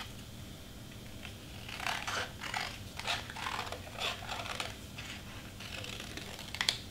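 Scissors snipping through glitter cardstock, cutting out a circle: a run of short, irregular snips starting about two seconds in.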